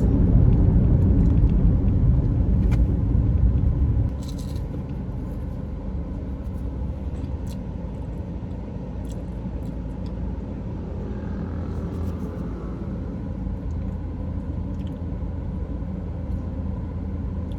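Low, steady rumble of a car heard from inside the cabin. About four seconds in there is a click and the rumble drops to a quieter level.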